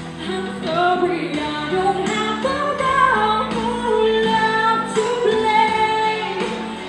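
A woman singing into a microphone over instrumental backing music, her melody rising and falling in long held notes.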